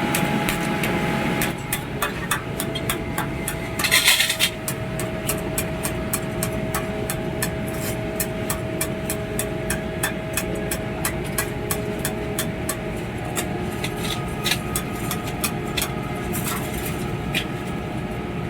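Stick welding arc crackling with dense, irregular clicks and pops over a steady hum. A louder hissing burst comes about four seconds in.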